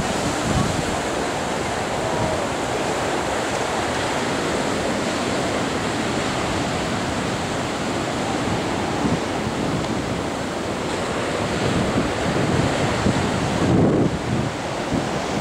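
Rough sea surf breaking steadily along a sandy beach, a continuous wash, with wind buffeting the microphone in a low rumble that grows heavier near the end.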